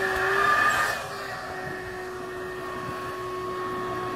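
A steady mechanical hum, a motor running at a constant pitch, louder for about the first second and then even.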